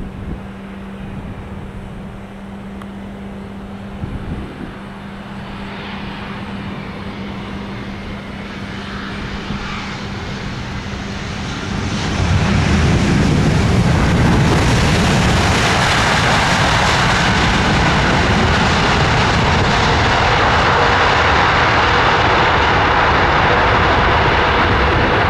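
Boeing 787-9 jet engines on final approach, slowly growing louder, then jumping suddenly about halfway through to a loud, steady roar as the airliner comes close and lands.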